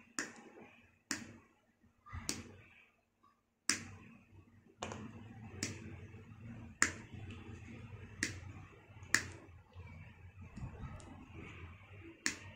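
Chrome-vanadium pliers snipping and working the bared ends of a stranded electrical cable's wires: about nine sharp snaps at irregular intervals, with handling rustle between them in the second half.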